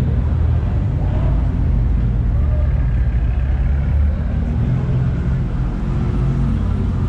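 A car running, with engine and road noise as a steady low rumble.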